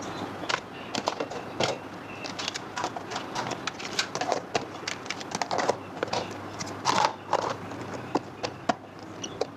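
Irregular small clicks, taps and crinkling, the sound of things being handled, with a few louder knocks.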